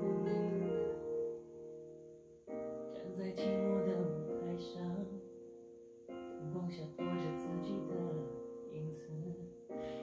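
Piano-led recorded music played back through Revel PerformaBE M126BE bookshelf speakers, which have a beryllium tweeter and a ceramic woofer. Sustained chords are struck afresh every one to three seconds over a pulsing bass line.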